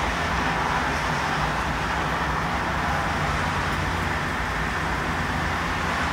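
Steady, even noise of distant road traffic with a low hum underneath, and no thunder.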